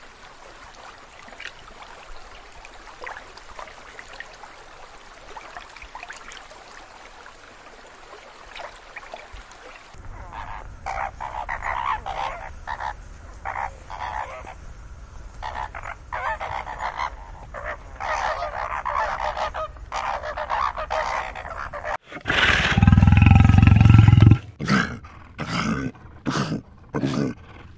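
A faint steady hiss, then a flamingo flock honking in repeated short calls from about ten seconds in. About twenty-two seconds in, a lion gives a loud, deep roar lasting some two seconds, then several shorter grunting roars.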